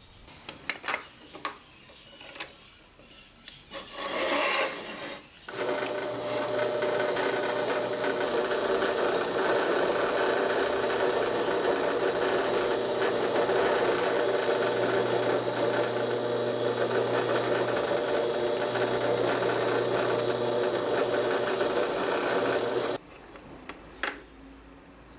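Electric drill running steadily while a twist bit bores into a hardwood knife-handle block, with a constant motor hum under the cutting; it starts about five seconds in and cuts off suddenly near the end. A few clicks of handling come before it.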